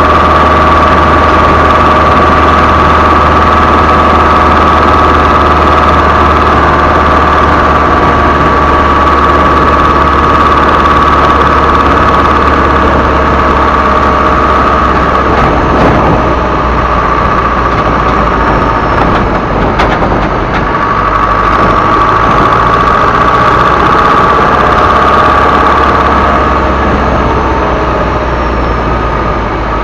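Isuzu Elf HD truck's turbo diesel engine running with a steady, high turbo whistle over its low drone. The whistle fades for a few seconds past the middle, returns, then eases off near the end.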